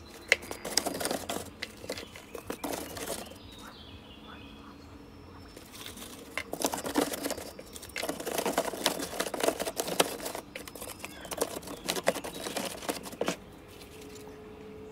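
Paper-pulp egg crates rustling, scraping and knocking against each other and a plastic bin as they are pushed and packed in tightly by hand. The sound comes in bursts, with a quieter lull of a couple of seconds partway through.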